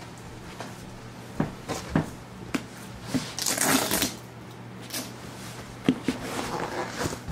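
Knocks and rustling handling noises over a steady low hum: three sharp knocks about half a second apart, a brief rustle about three seconds in, then a couple of clicks and more rustling near the end.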